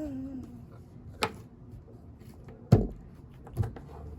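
A few separate knocks and clicks of objects being handled on a surface, the loudest a dull thump a little under three seconds in. The falling tail of a voice is heard at the very start.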